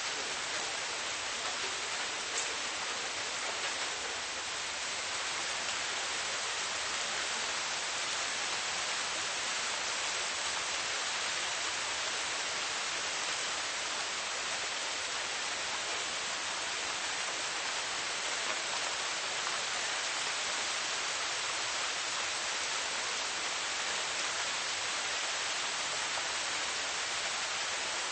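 Steady rain falling, a dense, even hiss of many drops with no let-up.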